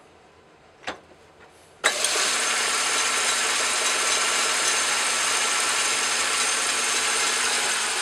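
A single sharp click, then about two seconds in a Craftsman Atlas metal lathe switches on and runs steadily, its four-jaw chuck spinning.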